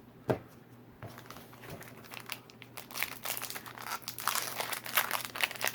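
Foil wrapper of a Pokémon booster pack crinkling as it is handled and torn open, sparse at first and growing busier and louder from about three seconds in. A single sharp tap sounds just after the start.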